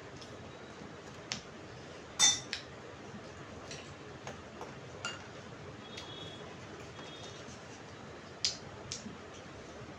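Cutlery clinking against plates and bowls while eating: scattered sharp clinks, the loudest about two seconds in, a few with a brief high ring.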